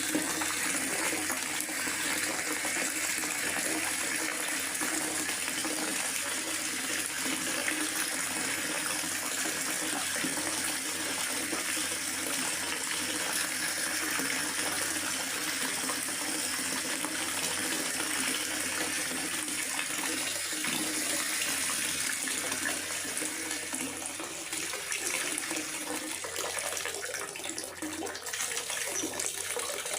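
Steady rain falling in a forest, a continuous even hiss without breaks.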